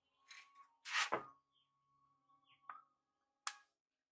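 Hands handling a receiver chassis on the workbench: a few brief rubs and knocks, the loudest about a second in, then two sharp clicks in the second half.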